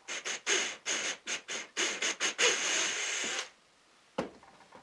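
Drill with a thin twist bit boring a hole through a half-cut wooden dowel held in pliers: a run of short drilling bursts, then about a second of steady drilling that stops about three and a half seconds in. A single click follows.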